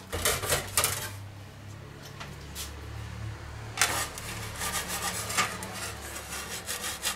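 Metal pizza peels scraping and sliding over a wooden board, in bursts: a cluster of scrapes in the first second, then a longer run of scraping a little past the middle. A low steady hum runs underneath.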